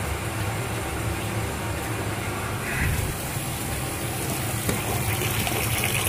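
Water gushing from a steam boiler's drain valve into a bucket, with a steady low rumble from the burner still firing. The boiler is being drained to drop the water below the low-water cutoff probe. The splashing hiss grows louder near the end.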